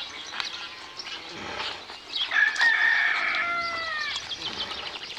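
A rooster crows once: a pitched call of about two seconds, starting about two seconds in, that holds and then drops in pitch at its end. Short chirps and clicks sound around it.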